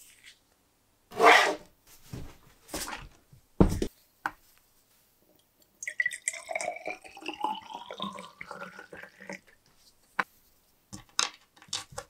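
Rust remover poured from a plastic jug into a small glass jar, gurgling, its pitch rising steadily as the jar fills. Before the pour come a few sharp knocks and clicks of things handled on the wooden bench, and a few more clicks near the end.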